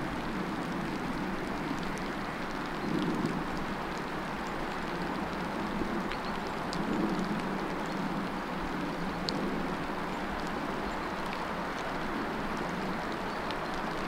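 Steady rain with scattered drops ticking. Under it a low rumble swells briefly about three and seven seconds in.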